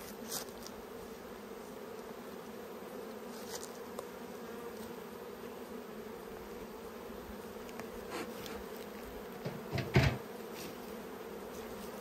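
A colony of honeybees buzzing steadily around an open hive. A few knocks sound over the buzz, the loudest about ten seconds in.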